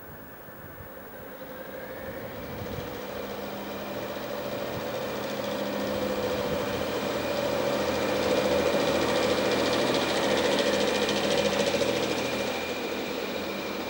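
WestRail Prospector diesel railcar set pulling out and passing close by, its diesel engines running under power with a steady hum and a higher whine. It grows louder over the first several seconds, is loudest as the cars go past, and eases near the end.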